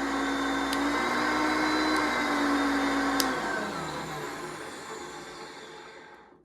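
1979 Hoover Concept One U4205 vacuum cleaner running steadily, then switched off with a click about three seconds in; its motor winds down in falling pitch and fades to a stop.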